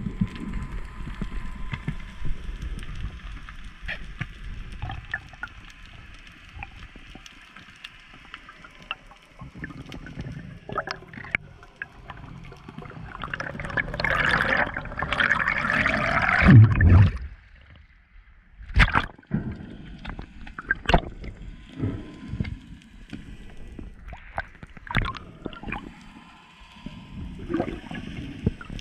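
Underwater sound through a camera housing: scattered sharp clicks over a low wash, and about halfway through a loud rush of air bubbles streaming past the camera for around three seconds.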